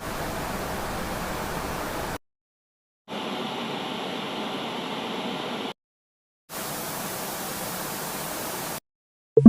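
Three separate bursts of steady hiss, like static, each about two seconds long, starting and stopping abruptly with silent gaps between them; the middle burst has a slightly different, banded texture. A short, loud pitched blip comes right at the end.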